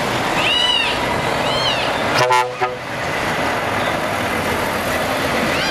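Heavy trucks' diesel engines running as they pull away, with one short air-horn blast a bit over two seconds in. Before it come two brief high calls that rise and fall.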